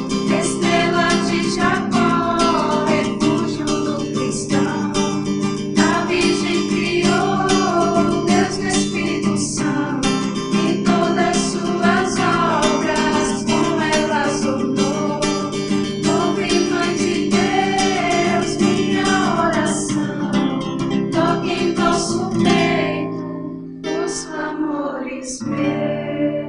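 A group of women singing a hymn in Portuguese, accompanied by a strummed acoustic guitar. Near the end the voices stop and the guitar plays on alone.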